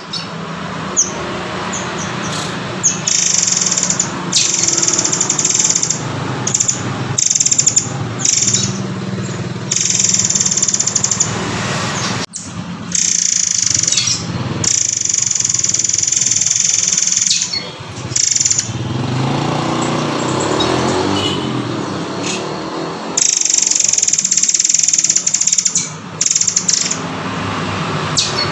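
Murai air (murai kopi) bird calling: loud, shrill, high-pitched phrases in repeated stretches of one to three seconds, played as a recording for songbirds to learn from.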